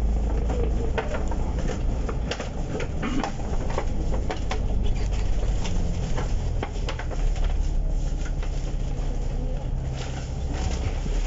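Inside a moving bus cabin: a low engine and road rumble, with frequent small rattles and clicks from the bus's fittings.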